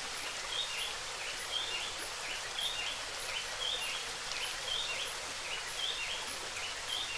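Forest ambience: a steady rushing noise with a short two-part chirp repeating about once a second and faint high ticks about twice a second.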